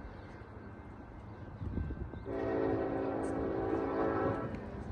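Freight locomotive's air horn sounding one long, steady chord-like blast of about two seconds, starting abruptly a little over two seconds in, over a low rumble.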